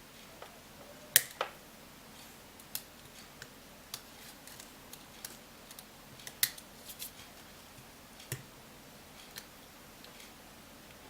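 Scattered sharp little clicks and taps of small tools on the iPhone 5's metal parts as its internal metal shield is worked loose. The two loudest clicks come about a second in and a little past the middle.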